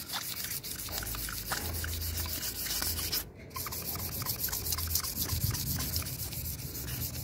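Fine 600-grit sandpaper rubbed by hand in quick back-and-forth strokes over the lip of an alloy wheel, with a short break about three seconds in. This is the finishing pass that smooths out curb rash after the coarser 240-grit.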